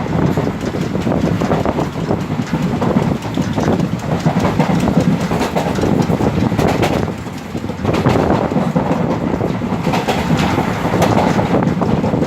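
Indian Railways express train running at speed, its coach wheels clickety-clacking over the rail joints above a steady rumble; the sound dips briefly a little past halfway.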